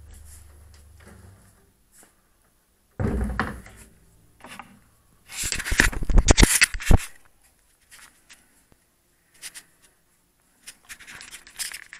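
A low double bass note fades away over the first second or so. Then the camera is handled: a thump about three seconds in, loud rubbing and knocking against the microphone around the middle, and scattered clicks and rustles near the end.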